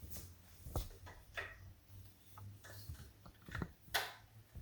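A series of light clicks and knocks from an Allen wrench and small locking hardware being worked into quilt frame parts as a fitting is turned and secured. The sharpest knock comes near the end.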